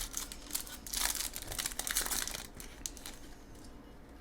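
Foil wrapper of a Magic: The Gathering collector booster pack crinkling as it is handled and opened, densest for about a second and a half in the middle, with scattered crackles before and after.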